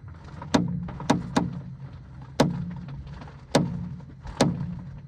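Faulty suspension top mount on a 2017 Peugeot 2008 clicking as the steering is turned: six sharp clicks at uneven intervals, each with a brief ring, over the low hum of the idling engine. The clicking is the sign of a worn top mount on the driver's side.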